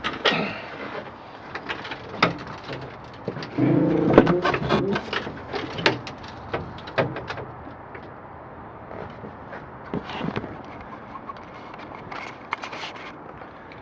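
Boat fittings and hatch lids being handled: a run of clicks and knocks, with a brief low moaning tone about four seconds in.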